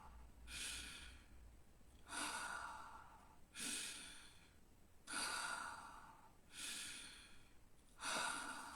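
A person doing a slow deep-breathing exercise, breathing audibly in and out in a steady rhythm: six long breaths about a second and a half apart, each a hiss that fades away.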